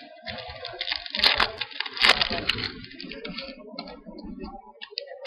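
Baseball trading cards and their pack being handled by hand: crackling and rustling, with a few sharp snaps of card stock in the first half, then softer scattered clicks.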